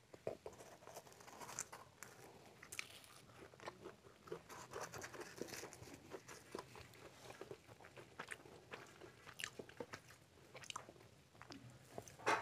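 Deep-fried puris being torn apart by hand: faint, crisp crackling and tearing of the fried bread in many short clicks, with a sharper crack near the end.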